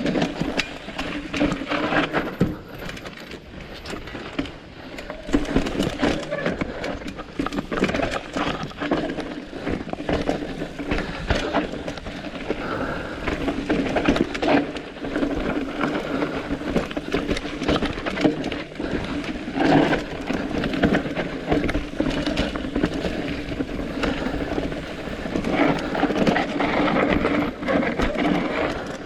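A downhill mountain bike rolling over rough trail, with frame and chain rattling and many small knocks from roots and rocks over steady tyre and wind noise.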